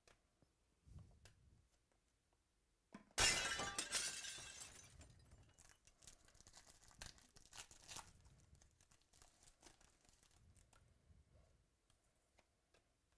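Foil wrapper of a baseball card pack torn open about three seconds in, a sudden loud crackle that fades over a second or two, then several seconds of fainter crinkling as the wrapper is pulled off the cards.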